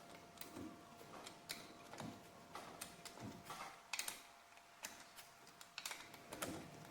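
Faint, irregular clicks and light metallic taps of hand tools at work, a few a second, over a faint steady hum.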